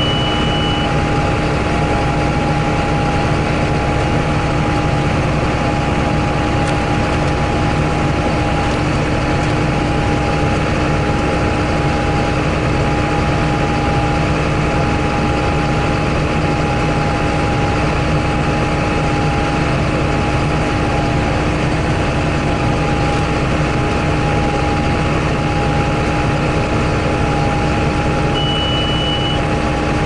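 John Deere 8100 tractor's six-cylinder diesel running steadily, heard from inside the cab while pulling the baler, with a steady whine over the engine. A short high beep sounds just at the start and again near the end.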